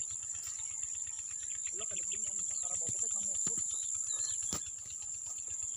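Insects calling in a steady high-pitched drone, with faint distant voices about two seconds in and scattered light clicks, one sharper near the end.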